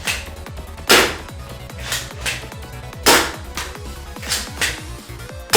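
Spring-powered 3D-printed Nerf blaster with a 788 spring firing three sharp shots about two seconds apart, with lighter clicks between shots as it is primed. Background music plays underneath.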